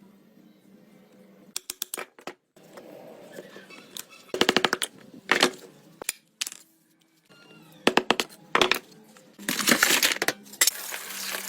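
Short clusters of rapid metallic clinks and taps, several bursts in a row, from hand work on metal; a steadier hiss comes in near the end.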